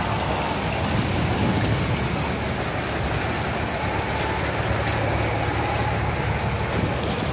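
Steady rushing noise of heavy rain and floodwater flowing through a street.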